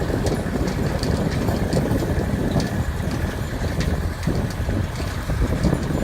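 Allis-Chalmers 7060 tractor's six-cylinder diesel engine running steadily while working a Welger baler, with scattered faint ticks over the engine noise.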